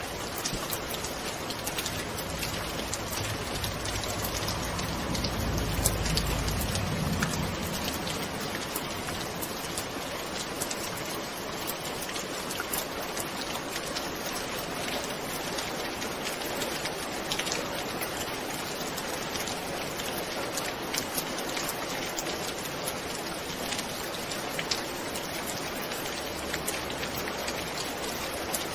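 Steady rain falling, an even hiss peppered with many small drop ticks. A low rumble swells and fades about five to seven seconds in.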